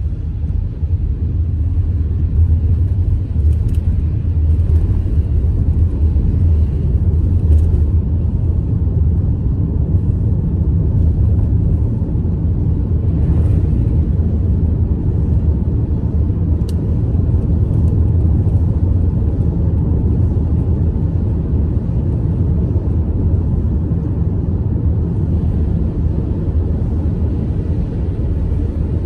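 Steady low rumble of a car driving, engine and tyre noise heard inside the cabin, with a few faint clicks.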